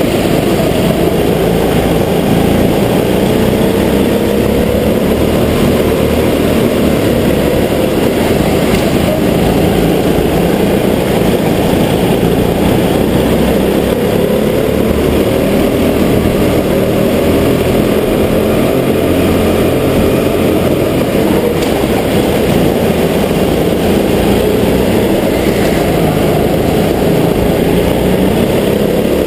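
Go-kart engine running under load, heard loud and close from onboard. Its pitch rises and falls slowly with the throttle through the corners, under a dense steady noise.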